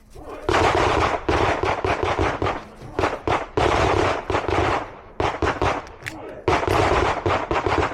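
Smith & Wesson M&P pistol fired in rapid strings of shots, starting about half a second in and coming in several tight groups.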